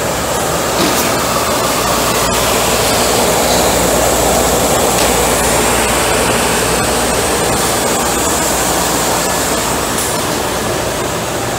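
Timesaver 37-inch wide-belt dry sander running: a loud, steady whirr and rush of air, with a faint high whine over it.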